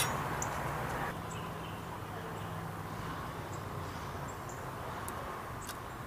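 Outdoor background: a steady low hum with scattered faint, high-pitched ticks.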